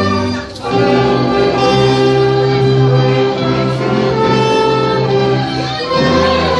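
Church ensemble of saxophones, brass and strings playing a slow hymn in long held chords, with a brief pause between phrases about half a second in.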